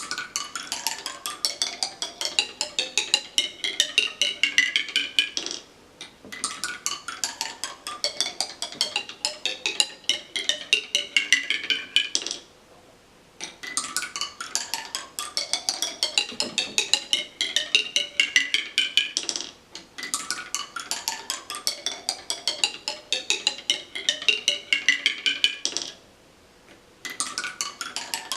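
Marbles running down a musical marble tower, a rapid clatter of clicks and tinkling notes that steps down in pitch on each descent. The runs come again and again, about six seconds each, with short pauses between marbles.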